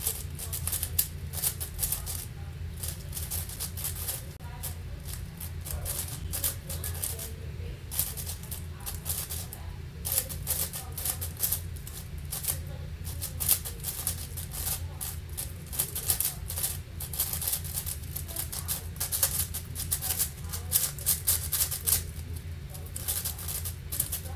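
Rapid plastic clicking and clacking of a MoYu Angstrom AoFu WRM 7x7 speed cube as its layers are turned fast in a speedsolve. The clicks come in quick, uneven flurries with a few short pauses.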